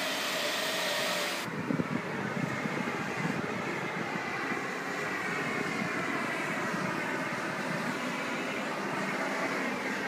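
Steady machine-like rushing noise. A brighter hiss over it cuts off suddenly about a second and a half in, and the lower rumbling noise carries on.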